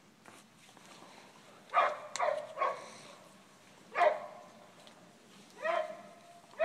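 A dog barking: a quick run of three barks about two seconds in, another at about four seconds, and a longer, held bark near the end.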